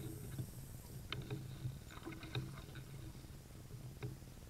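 A canoe being paddled quietly on calm water: a few light knocks and small splashes as the paddle strokes, about a second apart, over a low steady hum.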